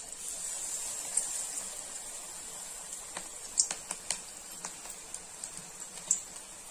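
Batter-coated green chilli (mirchi bajji) frying in hot oil: a steady sizzle that starts as it goes into the oil, with sharp crackling pops that come more often in the second half.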